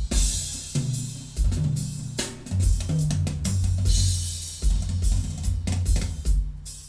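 Percussion-heavy music playing through a vintage Sansui QRX-7500 stereo receiver at flat settings: a drum kit with kick, snare and crashing cymbals over held low bass notes.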